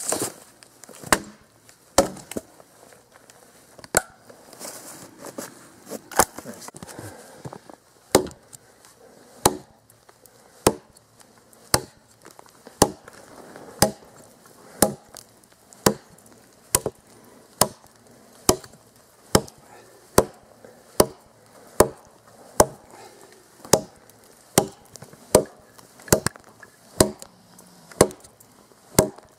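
Cold Steel Trail Hawk tomahawk chopping a dead log, its steel head biting into the wood with sharp single hits. The strokes are uneven for the first few seconds, then settle into a steady rhythm of about one chop a second.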